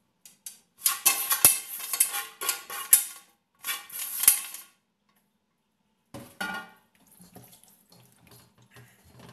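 Spoon scraping and knocking against a container and the pot as leftover marinade is scooped onto a raw whole chicken: two bursts of clatter with a few sharp knocks. After a short bump, hands rub the chicken in the pot more softly toward the end.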